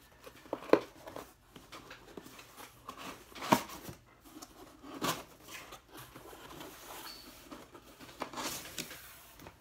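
A cardboard shipping box being torn and pried open by hand: tape and flaps ripping and scraping, with three sharp knocks of cardboard against the table.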